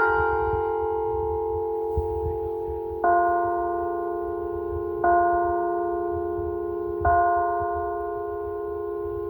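Church bells ringing. One bell strikes just at the start, then another bell is tolled three times about two seconds apart, each stroke ringing on under the next, over a low rumble.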